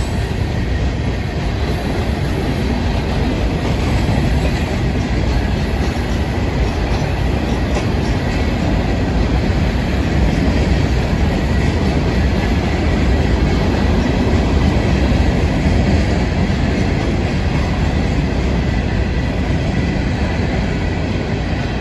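Florida East Coast Railway freight train rolling past: a steady, unbroken rumble of steel wheels on the rails with a faint clickety-clack.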